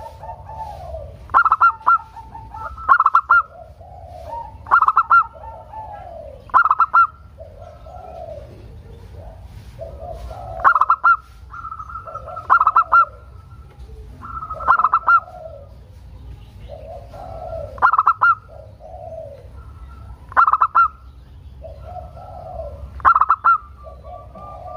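Local zebra dove (perkutut) cooing, its song repeated about every two to three seconds. Each phrase is a softer rolling lead-in followed by a loud burst of quick, higher staccato coos.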